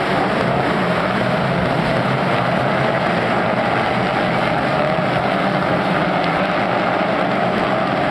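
Several Peugeot 308 Racing Cup cars, each with a turbocharged four-cylinder engine, running together as the pack goes through a hairpin. It is a steady, loud blend of engine notes.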